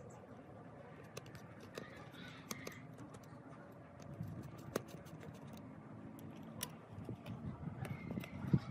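Scattered small clicks and light taps of hands working on laptop parts, over faint steady background noise. The clicks grow busier near the end.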